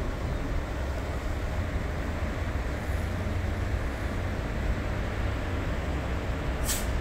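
Steady road traffic noise: a low rumble of idling and passing vehicles, with a short sharp hiss near the end.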